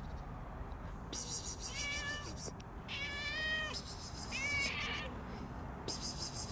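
A street cat meowing three times: a falling meow, a longer one, then a short one. Bursts of high, hiss-like noise come and go around the meows.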